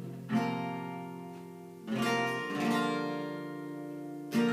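Acoustic guitar strumming an instrumental passage: a few chords struck and left to ring and fade, with a fresh strum just before the end.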